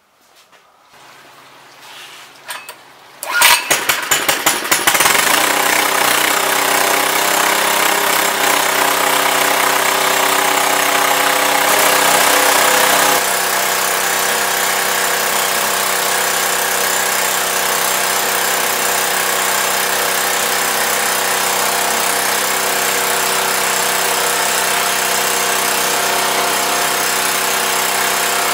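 Small gasoline engine of a 1-inch centrifugal water transfer pump starting: it catches about three seconds in with a quick series of firing pops, then runs steadily at speed. About halfway through the sound becomes a little quieter and settles.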